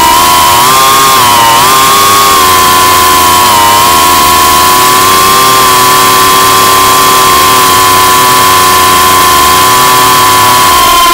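FPV racing quadcopter's electric motors and propellers whining, heard through the onboard camera over a steady hiss. The pitch wavers with the throttle in the first few seconds, then holds steady.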